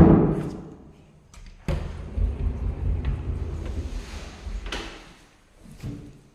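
A loud knock that rings away over about a second, then a few seconds of low, uneven rumbling with scattered knocks.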